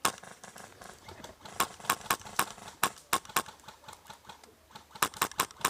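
Airsoft guns firing in quick strings of single sharp shots, a few tenths of a second apart, in three short volleys during an exchange of fire.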